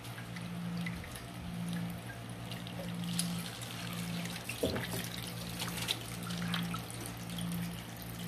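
Kitchen tap running into a stainless steel sink as hands rinse ginger root under the stream, with small splashes and a few knocks, one louder about halfway through. A low hum swells and fades about once a second underneath.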